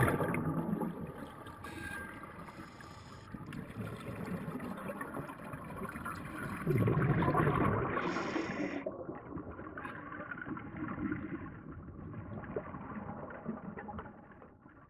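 Scuba diver's exhaled bubbles from a regulator, heard underwater: a loud bubbling rush at the start and another about seven seconds in, with quieter bubbling and water noise between.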